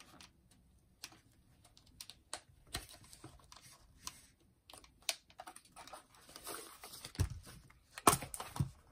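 Hard plastic portable cassette players being handled: scattered light clicks and knocks as a Sanyo MG31's casing is turned over and its cassette door worked. Near the end come a few louder knocks as a second player is picked up.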